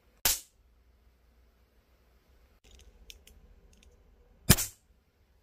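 Miniature flintlock-style cap gun firing twice, two sharp cap pops about four seconds apart. Between them come a few small clicks as the tiny hammer is cocked again.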